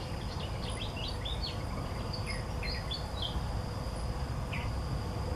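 Outdoor nature ambience: an insect trilling on one steady high note, with bursts of short bird chirps in the first few seconds and one more near the end, over a low rumble.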